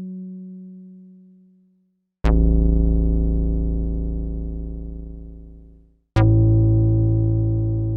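Synthesized bass notes from a Yamaha TX81Z FM synthesizer: an earlier note fades out, then two separate deep bass hits come about two and six seconds in, each with a sharp attack and a long, slow fade.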